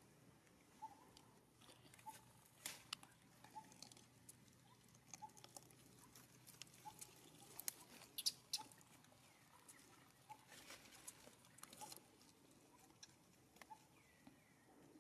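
Faint scattered crackling and clicking, like a newborn macaque scrabbling on gravel, dry leaves and twigs, a few clicks louder around the middle. A faint short high note repeats about once a second throughout.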